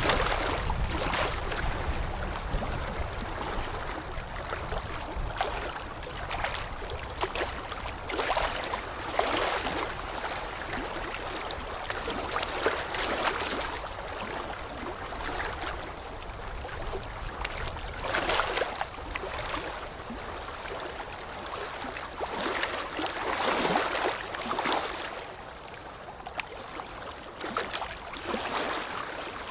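Steady rush of flowing water from a stream or waterfall, swelling louder every few seconds.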